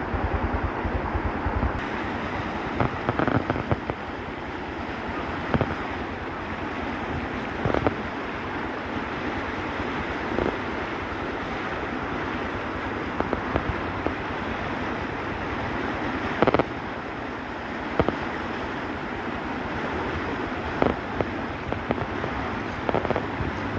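Steady rushing noise of a storm's wind and rain, with occasional short knocks scattered through it.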